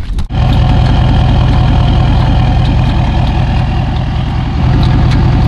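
A pickup truck's engine idling steadily, coming in abruptly just after a brief dropout.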